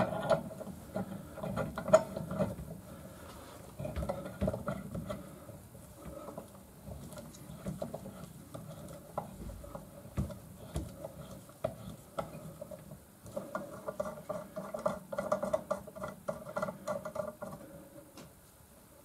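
Metal hand tools clicking and clinking on a Piaggio Ciao M1M moped engine as its ignition flywheel is being taken off. There are scattered knocks throughout and a quick run of rapid clicks about two thirds of the way in.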